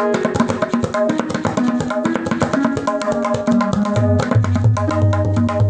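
Indian classical background music: tabla playing a quick rhythm under a melodic line. The deep bass drum strokes drop out for most of the passage and come back about four seconds in.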